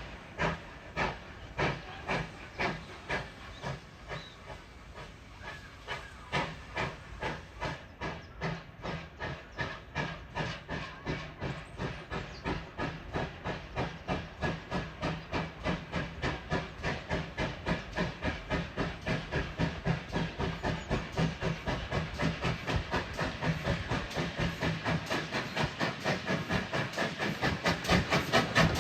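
Steam locomotive exhaust chuffing steadily as the engine gets under way, the beats speeding up from about two a second to about four a second and growing louder, with a hiss of steam between them.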